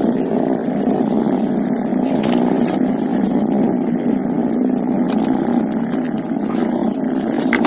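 Big cat cub giving a continuous low rumbling growl, steady and unbroken throughout.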